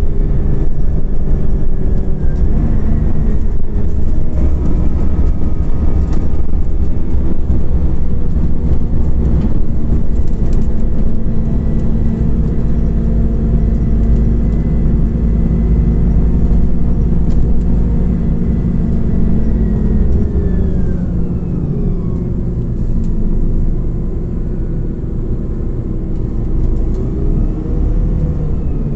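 Scania OmniCity CNG city bus under way, heard from inside: a steady engine and transmission drone over heavy road rumble. About two-thirds of the way through the pitch falls as the bus slows, and near the end it rises again as the bus pulls away.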